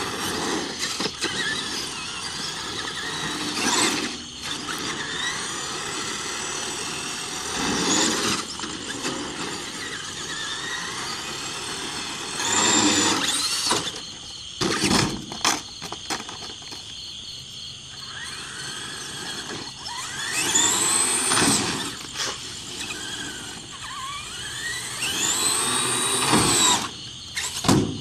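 Traxxas Summit RC truck's electric motor whining as the throttle is worked, the pitch rising and falling in repeated bursts, with the loudest runs a little before halfway and in the last third.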